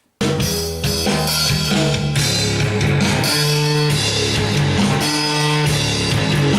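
A heavy rock band playing a run-through: distorted electric guitar through a small amp, bass and drum kit, starting abruptly just after the start. It is a level-setting pass for recording the band's single.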